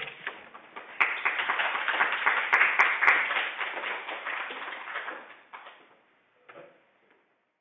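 Audience applauding. A few scattered claps at first, then full applause from about a second in, thinning out and stopping after about five seconds.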